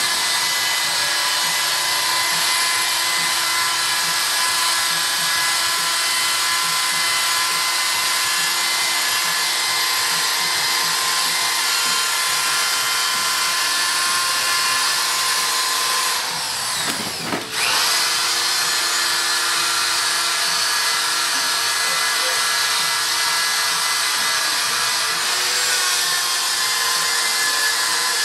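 Power drill spinning a foam polishing pad on a plastic headlight lens, a steady motor whine while polishing the wet-sanded lens. About two-thirds of the way through it briefly slows and spins back up.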